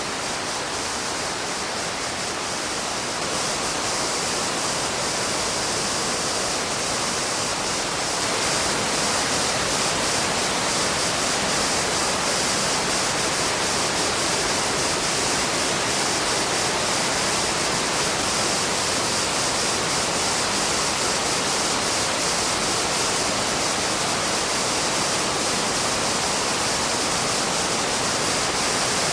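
Waterfall rushing with a steady, dense roar of falling water, growing slightly louder about eight seconds in.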